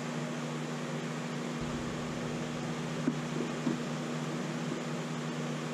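Steady mechanical hum with an even hiss, like a fan running in the workshop. About halfway through come a few light clicks as bar clamps are set on the glued wooden strips.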